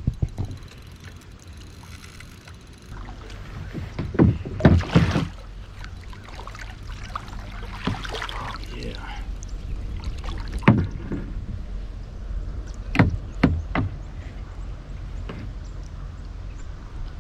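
A hooked redfish splashing beside a kayak and being lifted out of the water in a landing net, the loudest splashing about four to five seconds in. This is followed by a few sharp knocks against the kayak as the fish and net come aboard.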